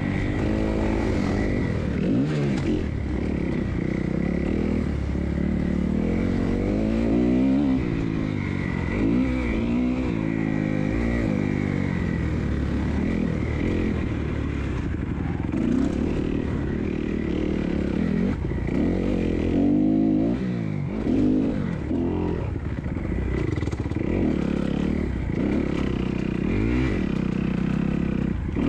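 Kawasaki 250F four-stroke single-cylinder motocross engine, ridden hard round the track. It revs up and drops back over and over, its pitch rising and falling every second or two as the rider works the throttle through the sections.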